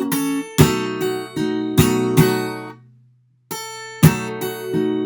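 Acoustic guitar played fingerstyle: a blues lick of picked notes over a ringing low bass note, punctuated by sharp percussive slaps on the strings. It comes in two phrases with a short silence just past the middle.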